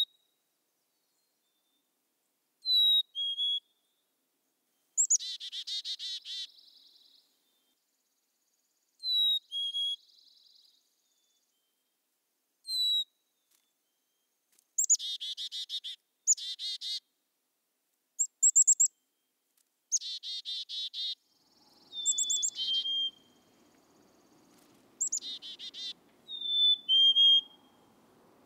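Black-capped chickadees calling, a few seconds apart: clear two-note 'fee-bee' whistles with the second note lower, alternating with buzzy 'chick-a-dee-dee-dee' calls of rapid repeated notes.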